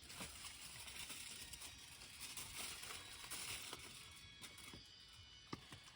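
Campfire of gathered wood burning with a faint hiss and scattered small crackles, one sharper pop about five and a half seconds in.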